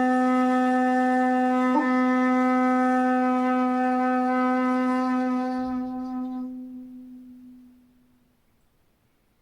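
Jinashi shakuhachi, 2.0 shaku long and pitched in C, holding one long low note with a rich stack of overtones. It has a brief flicker about two seconds in, then fades out slowly over about three seconds into near silence.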